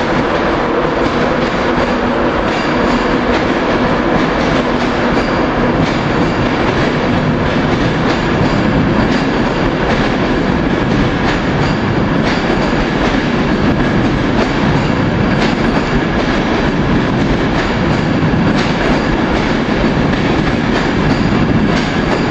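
Train moving through the station, a steady rumble of wheels on rails with occasional clicks over the rail joints.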